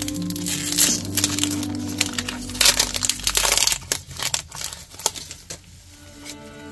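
Plastic trading-card booster pack wrapper crinkling and crackling as it is handled and opened, dense for about the first four seconds, then dying down to faint rustles.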